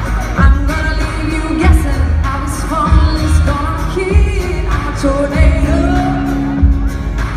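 A song playing: a voice singing a melody over a steady, heavy drum beat.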